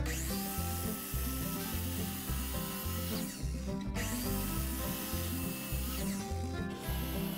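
Background music with a stepping bass line and steady sustained tones over a bright hiss. Twice the high end sweeps down and cuts out, then snaps back.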